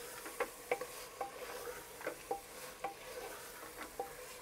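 Wooden spatula stirring and scraping a thick vegetable masala of carrots, peas and potatoes in a pressure cooker pot, over a faint sizzle of frying. The spatula knocks against the metal pot about two to three times a second, each knock ringing briefly.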